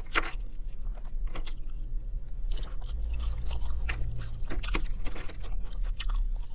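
Close-up chewing and biting of McDonald's French fries, with irregular crisp crunches and mouth sounds over a low steady hum.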